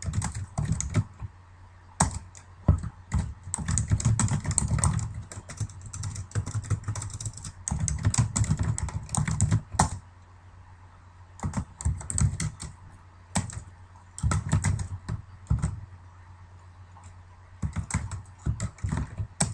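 Computer keyboard typing in quick bursts of keystrokes with short pauses between them, as commands are entered at a terminal.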